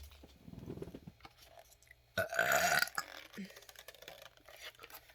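A single burp, about two-thirds of a second long, a little over two seconds in, among a few faint clicks and soft handling sounds.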